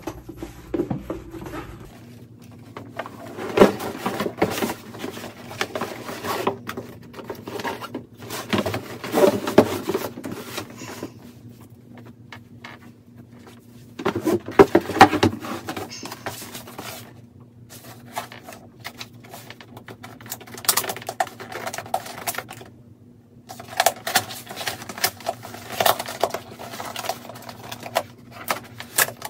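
Handling noises: a canvas-and-leather handbag and its packaging rustled and knocked about as it is put away, then a cardboard shipping box picked up and handled, in irregular bursts of rustling and clicks. A faint steady low hum sits underneath.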